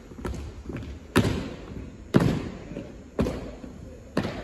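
Armed drill team's rifle and foot strikes: a couple of lighter knocks, then four loud, sharp impacts about a second apart, each echoing in the gymnasium.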